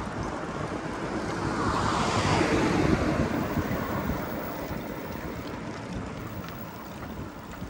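Wind rushing over the microphone of a moving bicycle, swelling about two to three seconds in and then easing off.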